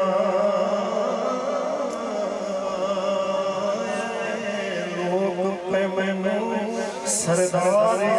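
A man's solo voice singing a naat (an Islamic devotional song) into a microphone, drawing out long, wavering notes.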